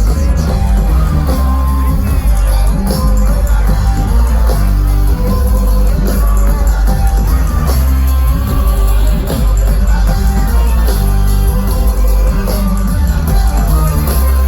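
Live band music played loud through a festival sound system, with heavy bass and melodic instrumental lines, and some crowd shouting and whooping mixed in.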